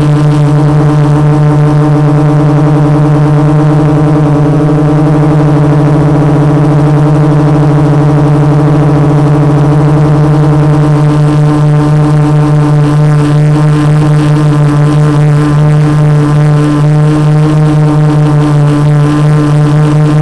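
450-size quadcopter's MultiStar 2212 brushless motors and 12-inch carbon fibre propellers holding a hover: a loud, steady buzzing hum at one unchanging pitch with its overtones, heard from the camera mounted on the drone.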